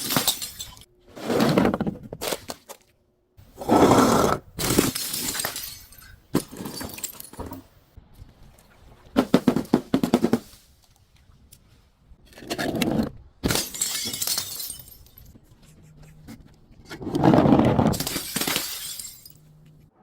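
Glass being crushed and breaking in a series of cracking, crunching bursts every few seconds, with a quick run of crackles around the middle and a longer crunch near the end.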